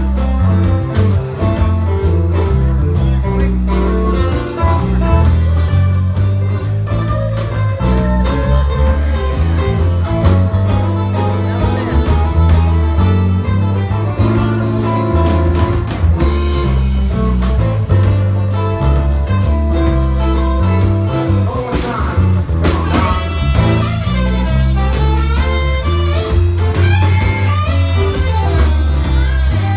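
Live band playing a blues-rock song: acoustic guitar, electric bass guitar and a drum kit.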